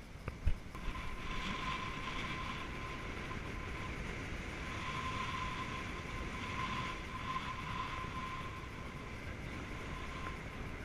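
Chevrolet D-Max 2.5 turbodiesel pickup driving along a dirt road: steady running noise with a thin, steady whine, after a few sharp knocks in the first second.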